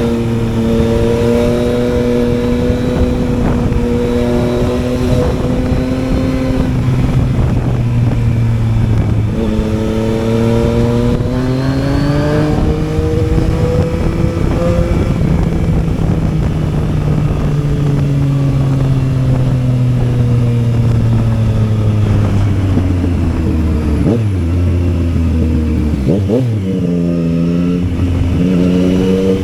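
Yamaha Tracer 900's three-cylinder engine running under way, heard from the rider's seat over wind rush. It holds steady revs at first, revs rise about ten seconds in, then fall slowly and evenly as the bike slows, with a few quick rev changes near the end.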